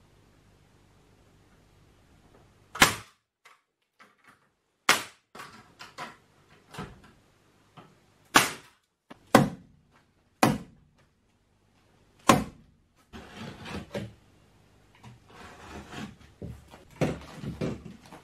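Separate sharp knocks and thunks from hand-tool work on framing and insulation: about six loud strikes spaced a second or more apart, with quieter clicks between them. Over the last five seconds, rustling handling noise with small knocks.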